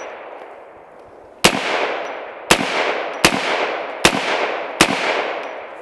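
Five semi-automatic rifle shots from an AR-style rifle chambered in .458 SOCOM, firing 300-grain soft-point rounds. They come about one a second, starting about a second and a half in, and each is followed by a long fading echo.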